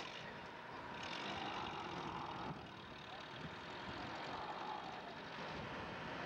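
Engine of a crane truck running steadily while its hydraulic crane lifts a camel.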